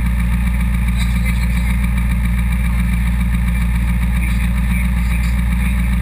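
Off-road buggy's engine idling steadily, with no revving.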